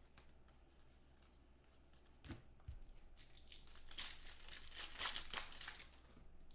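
Foil wrapper of a Panini Contenders football card pack crinkling and tearing as it is opened by hand: a run of short crackles starting about two seconds in, loudest a little past the middle.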